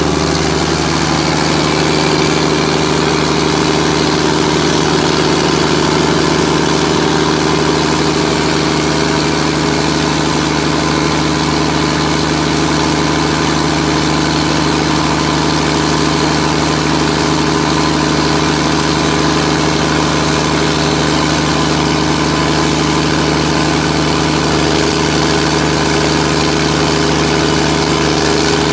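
John Deere turbocharged diesel engine of a 180 kVA generator set running at a steady speed.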